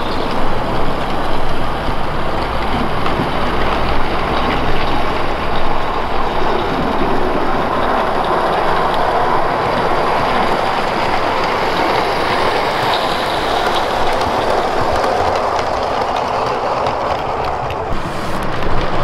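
Live-steam garden-railway locomotive hauling coaches along the track: a steady rushing noise of running wheels and escaping steam.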